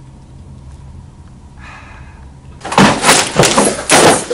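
Loud crashing and banging: a quick run of heavy knocks and clatter starting about two-thirds of the way in and lasting over a second.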